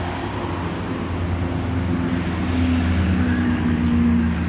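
Road traffic: cars passing on a multi-lane avenue, their engine and tyre noise swelling to a peak about four seconds in and then easing.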